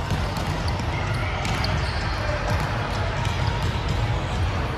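Volleyball game play: a ball being struck and bouncing, heard as several short sharp knocks over a steady background of players' voices and court noise.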